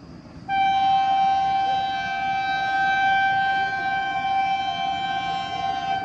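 WAP-4 electric locomotive's horn sounding one long, loud blast from an approaching train, a steady chord of several tones starting about half a second in.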